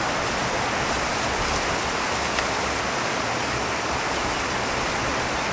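Steady rushing of a mountain stream, an even wash of noise that does not change.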